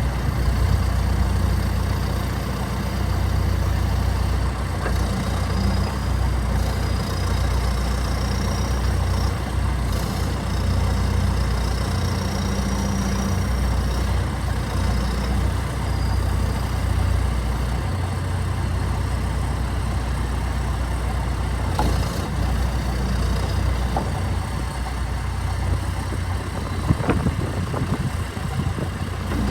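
2016 John Deere 310SL backhoe's turbo diesel engine running steadily, with a faint high whine that rises and falls in the middle and a few sharp clicks near the end.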